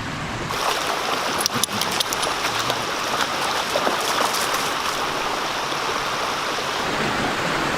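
Steady rush of stream water flowing over rock, with a few brief clicks about a second and a half in.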